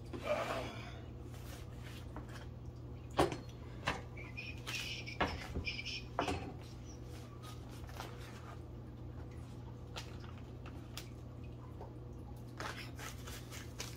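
Paper sandwich wrapper rustling and crinkling as it is peeled open, with a few sharp knocks of things set down on a wooden cutting board.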